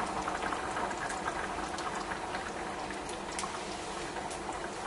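Pot of paella (rice in stock, wine and tomato sauce) boiling hard on the stove: a steady bubbling with many small pops of bursting bubbles, easing slightly as the heat is turned down to a simmer.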